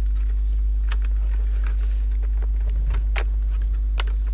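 A steady low electrical hum, with a few faint clicks and taps from hands handling the opened cassette player's circuit boards and tape-deck mechanism.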